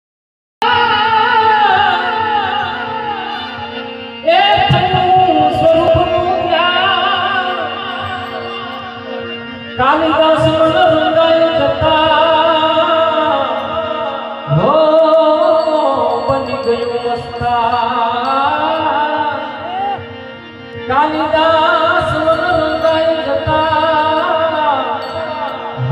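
A man singing a Gujarati devotional song to his own harmonium, the reed organ holding steady chords under the melody, with a drum keeping a beat from about four seconds in.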